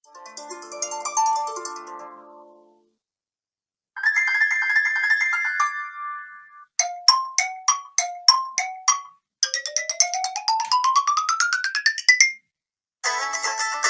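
iPhone SE preset ringtones played one after another, each a few seconds long with short silences between: a chiming melody, a held electronic chord, a quick run of about seven pulsed notes, a tone that slides steadily up in pitch, and a fuller melody starting near the end.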